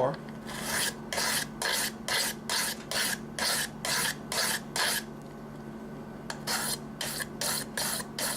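A pocket-knife blade drawn in quick strokes across a DMT diamond sharpening stone, a rasping scrape at about three strokes a second. The strokes pause briefly about five seconds in, then resume.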